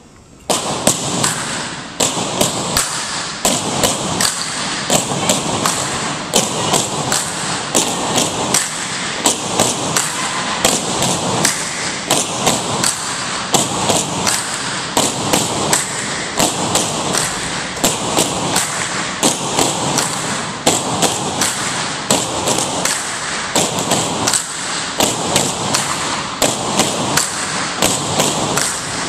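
Tinikling poles being tapped on the gym floor and clapped together by the seated pole-holders: sharp knocks in a steady repeating beat, starting suddenly about half a second in, ringing in the hall.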